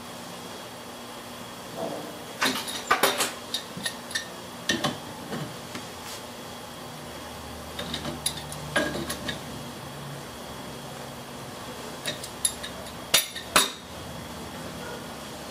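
Metal clinks and knocks from steel tool parts and pipe fittings being handled and tightened with a wrench, in several short clusters of sharp taps, with the two loudest strikes near the end.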